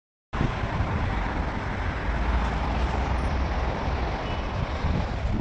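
Steady road-traffic noise, heaviest in the low end, starting abruptly a moment in.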